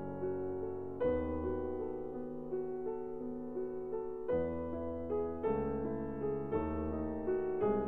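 Background piano music: soft, slow chords with a melody line, a new chord struck every one to three seconds.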